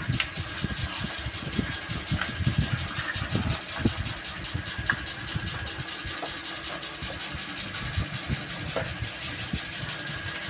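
Scattered light clicks and taps of small plastic toy pots, plates and a spoon being handled, over a steady mechanical hum.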